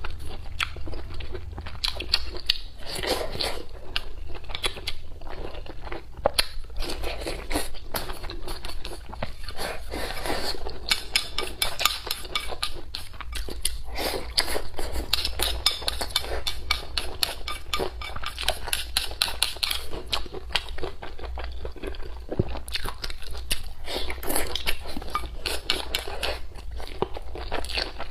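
Close-miked eating: a person chewing and crunching food, with a dense run of small wet clicks and crackles.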